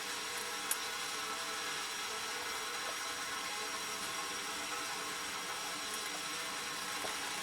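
A steady, faint whirring hum with a few low steady tones in it, and one small click about a second in.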